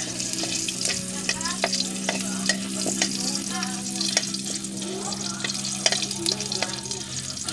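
Chopped garlic and onion sizzling in hot oil in a wok as they are sautéed. A stirring utensil makes frequent sharp clicks and scrapes against the pan.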